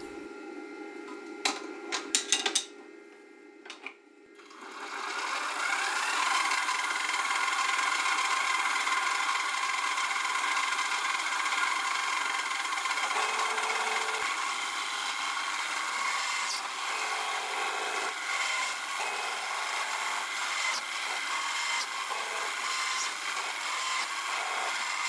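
A few metallic clicks as a drill bit and collet are handled. Then, about four seconds in, the Sieg X1 mini mill's brushed spindle motor spins up with a rising whine and runs steadily while a 6 mm drill bores holes in an aluminium plate under CNC control. It is about as loud as a sewing machine.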